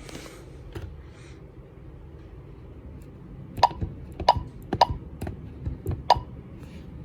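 Touchscreen alarm keypad (a 6270) chirping as its on-screen buttons are pressed: about five short clicking beeps in the second half, each with a brief tone.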